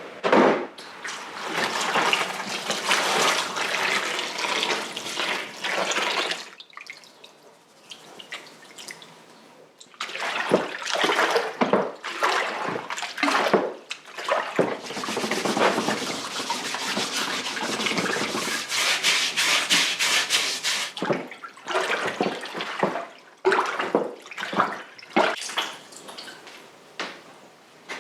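Water running and splashing in stop-start bursts, with a quieter pause about seven seconds in.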